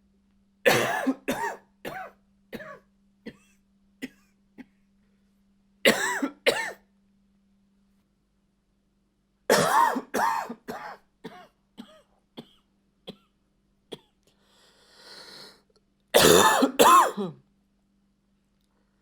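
A man's dry cough with a little bark, coming in fits: a run of coughs trailing off in the first few seconds, two more a few seconds later, another longer fit about halfway, then a breath and two loud coughs near the end.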